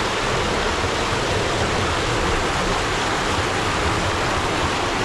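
Fast-flowing river water rushing and cascading over rocks close by, a loud, steady rush of water.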